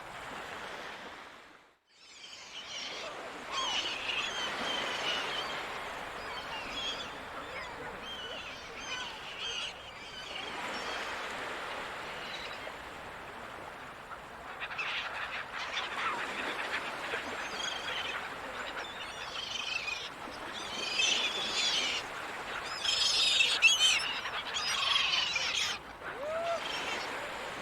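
Seagulls calling, many overlapping cries that grow busiest near the end, over a steady wash of the sea. The sound dips briefly to near silence about two seconds in, then returns.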